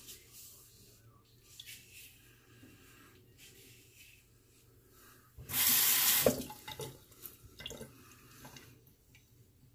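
A bathroom sink tap runs for about a second midway, water splashing into the basin, followed by a few small clicks and splashes. Faint short sounds come before it.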